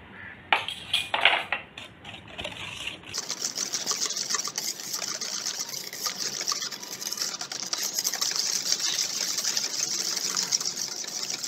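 Cake batter being whisked by hand in a stainless steel bowl. A few light clinks come first, then from about three seconds in a fast, steady wet slapping and scraping.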